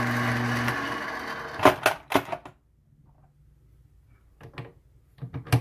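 7x14 mini lathe running with a steady hum that stops abruptly just under a second in, followed by sharp metal clicks and knocks as the tool post and compound rest are handled, loudest between one and a half and two seconds in, with a few more near the end.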